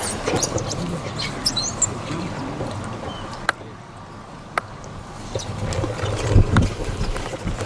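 Outdoor background noise with wind buffeting the microphone, broken by two sharp clicks about a second apart in the middle.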